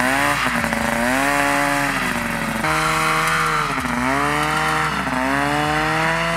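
Homemade scooter's 70 hp snowmobile engine running under load, its pitch rising and falling several times as the throttle is worked, while it pulls away carrying two riders on sand.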